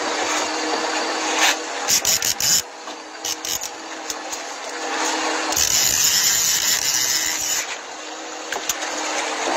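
A boat's engine running with a steady hum under wind and water noise. A few knocks and clicks come around two to three seconds in, and a louder hiss rises from the middle and drops away near the end.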